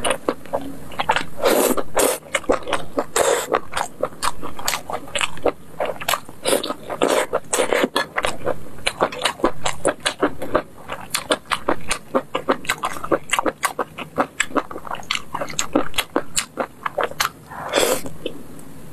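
Close-miked eating of sauce-glazed skewered food: rapid, continuous chewing clicks and mouth sounds, with a few longer, louder bites near the start and near the end.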